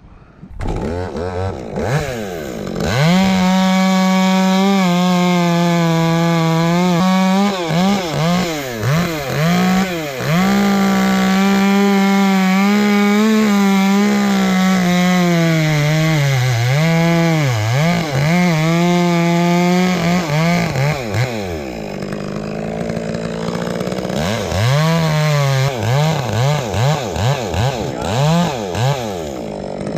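Chainsaw revving up about half a second in, then cutting at high throttle, its pitch dipping again and again as it bites into the wood. Around twenty seconds in it drops back, then revs in short blips near the end. It is cutting into a dead, partly rotten trunk with a solid heartwood core.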